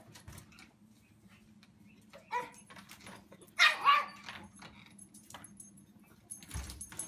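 A dog barks three times: one short bark about two seconds in, then two louder barks in quick succession a second later.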